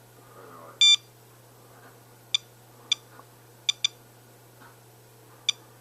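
Digital Geiger counter beeping at uneven intervals as it registers radiation counts: six short beeps, the first a little longer and louder, and two close together in the middle.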